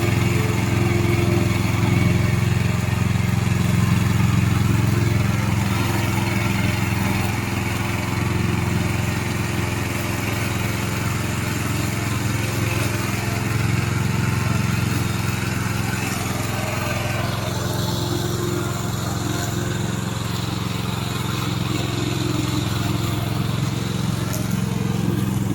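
The Loncin 9 hp petrol engine of a remote-control lawn mower running steadily, its pitch holding level throughout.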